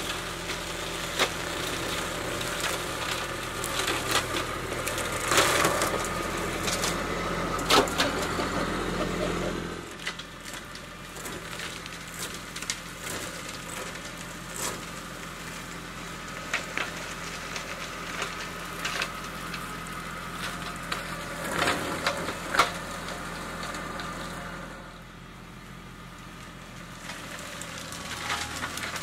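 Kubota B2261 compact tractor's three-cylinder diesel running steadily while its front PTO flail mower shreds brush and branches, with frequent sharp cracks and snaps of wood splintering. The shredding is loudest in the first ten seconds, then eases to lighter mulching of leaf litter.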